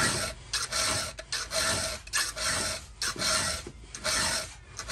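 A round chainsaw file being stroked by hand through a saw-chain cutter tooth, rasping steadily at a little under two strokes a second with a faint metallic ring. The strokes are sharpening the cutter and raise a burr on its edge.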